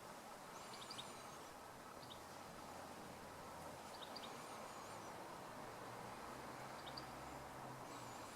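Steady rushing of a beck's water, with a small bird's high wavering whistles and short chirps coming every few seconds over it.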